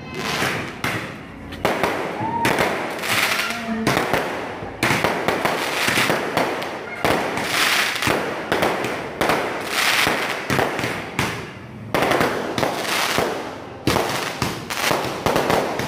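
Aerial fireworks going off in rapid succession: a near-continuous run of bangs and crackling bursts.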